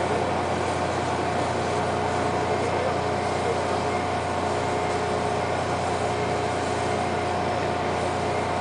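Ship's engine machinery running steadily at idle: an even drone with a constant hum and a few steady tones, unchanging throughout.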